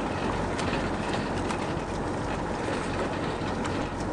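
Boat engine running steadily with wind and water noise, and a few light clicks and rattles.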